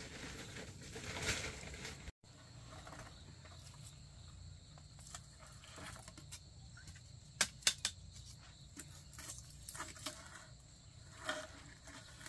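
Faint outdoor ambience of insects, such as crickets, trilling steadily in the background, with scattered light clicks and a quick cluster of sharper clicks about seven and a half seconds in.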